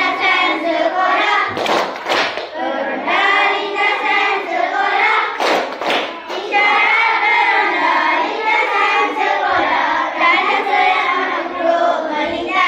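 A class of young children singing together in unison, with a few sharp hand claps about two and six seconds in.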